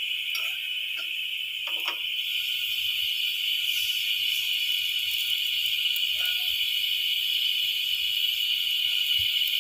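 A steady high-pitched drone, like insect chirring, that never lets up. A few faint soft taps come in the first two seconds.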